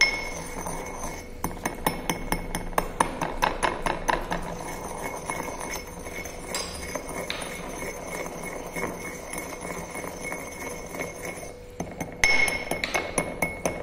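Pestle grinding and striking granular crystals in a porcelain mortar: a quick run of sharp clinks and scraping, several a second, with a ringing tone from the bowl. The clicks thin out around the middle and come louder again near the end.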